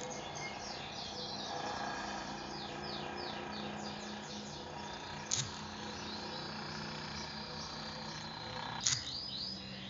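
A bird chirping in quick runs of short falling notes, over a steady low hum. Two short knocks sound, about five seconds in and near the end.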